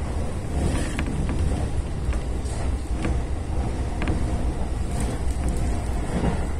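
Keiyo Line electric commuter train running along the track, heard from just behind the driver's cab. A steady low rumble of wheels on rail, with a few faint ticks now and then.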